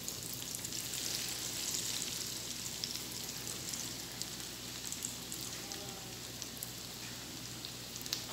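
Breaded potato, rice and egg kebabs shallow-frying in hot oil in a frying pan over a medium flame: a steady sizzle with scattered small crackles, a little louder in the first couple of seconds, just after the third kebab is laid into the oil.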